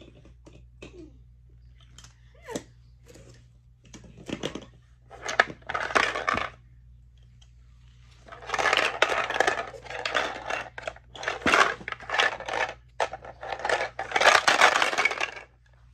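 Hollow recycled-plastic shapes knocking against and dropping into a plastic shape sorter: scattered clicks and knocks at first, then long bouts of clattering as the shapes rattle around inside the sorter, about eight seconds in and again near the end.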